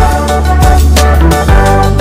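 Music with a steady beat, about two strokes a second, over a deep bass line.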